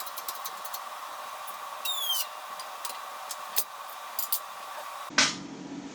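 Wheel bearing being pressed into a steel hub: scattered light clicks and a brief squeak over a steady hum, then a sharp knock about five seconds in.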